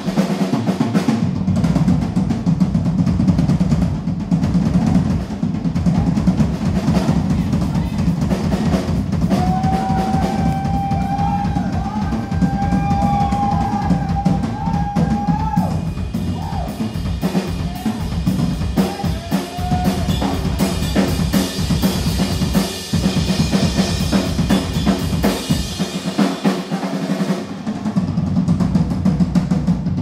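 Live drum kit solo: rapid, dense strokes across the snare and toms over the bass drum, which drops out briefly near the start and again about 26 seconds in. A held high tone with sliding pitches sounds over the drums from about 9 to 16 seconds in.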